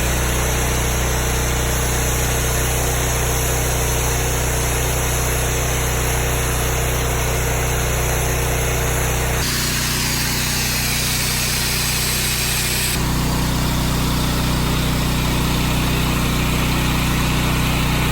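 Pressure washer's engine running steadily with a constant drone and hiss; the sound changes abruptly twice, about nine and a half and about thirteen seconds in.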